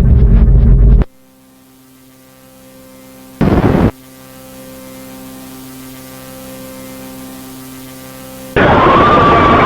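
Loud low rumble that cuts off suddenly about a second in, leaving a steady electrical hum; a short loud burst of static cuts in about three and a half seconds in, and near the end a loud harsh noise returns with a wavering tone in it.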